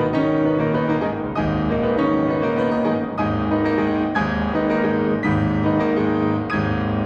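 Background music led by piano, with notes and chords changing at a steady, unhurried pace.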